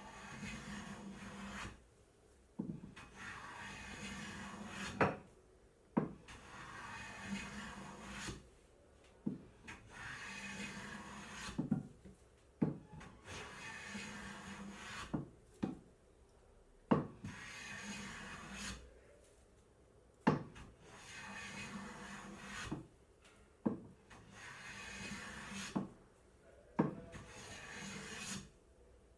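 Veritas hand plane taking shavings off an ash board in about ten strokes, each a rasping hiss lasting around two seconds. Most strokes begin or end with a sharp knock as the plane meets or leaves the wood.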